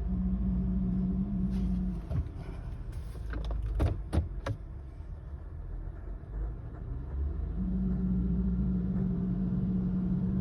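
Steady hum from a 2012 Honda Odyssey, the intermittent noise that removing the drive belt did not cure. It cuts out about two seconds in and comes back near the end, over a low rumble, with a few sharp clicks in between.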